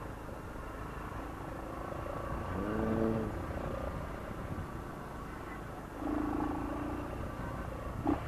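Motorcycle engine running at low speed in slow city traffic, with a short rise in pitch about three seconds in and a steady pitched tone around six seconds in. A sharp click near the end.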